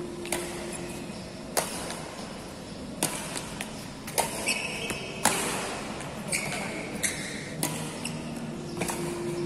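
Badminton rackets striking shuttlecocks in a fast practice drill: a sharp crack about every second or so, with a couple of short shoe squeaks on the court floor.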